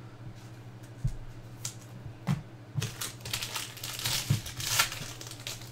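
A few light taps, then from about three seconds in the foil wrapper of a baseball card pack is torn open and crinkled in the hands.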